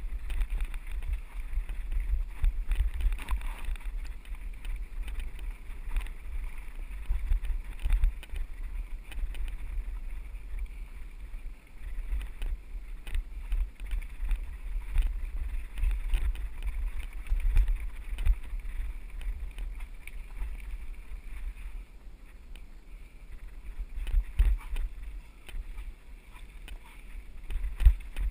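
Mountain bike rolling over a rocky dirt singletrack, its frame and parts rattling and knocking on the bumps, under a steady rumble of wind buffeting the action-camera microphone.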